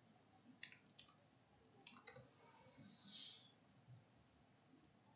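Faint computer keyboard typing: a scattering of single keystrokes and short runs of keys, with a soft hiss about three seconds in.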